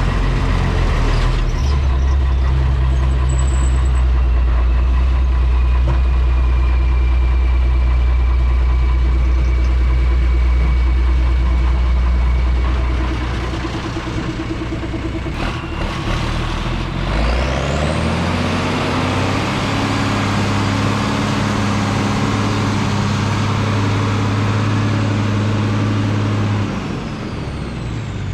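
Diesel engine of a 6x6 dump truck running steadily under load, then easing off; a sharp knock sounds about midway. The engine then revs up, holds a higher speed for about nine seconds, and drops back near the end.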